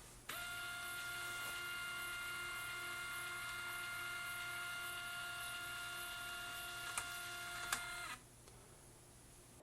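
Doxie Go WiFi portable sheet-fed scanner's feed motor running with a steady whine as it pulls a photo through, with two clicks near the end before it stops about eight seconds in.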